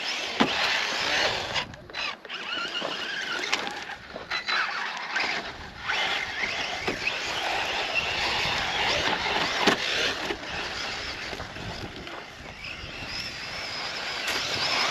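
Losi RC truck's brushless electric motor whining as it is driven, the pitch rising and falling with the throttle over a steady rush of tyre and ground noise, with a few sharp clicks.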